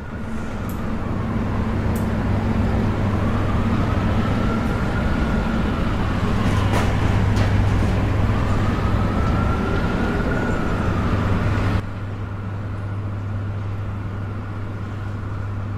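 Urban night ambience: a steady traffic rumble with a low hum, and a faint tone that slowly rises and falls twice. About three quarters of the way through it drops suddenly to a quieter steady background.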